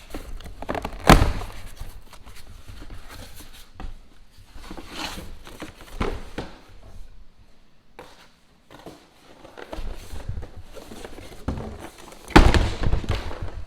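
Thuds and knocks of a cardboard package being handled and opened, irregular, with the loudest thud about a second in and another cluster near the end.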